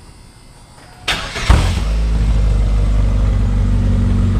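Chevy S10 pickup engine cranking briefly about a second in, catching with a loud burst, then settling into a steady, deep idle through a newly welded-in Cherry Bomb muffler.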